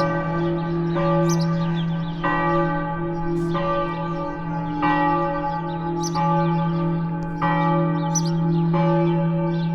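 Church bells ringing in full peal, a fresh stroke about every second and a quarter, each stroke ringing on under the next so a steady low hum runs underneath.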